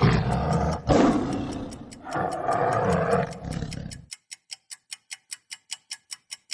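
A tiger roaring, three rough roars one after another. Then, about four seconds in, the roar stops and a steady ticking like a countdown timer takes over, about five ticks a second.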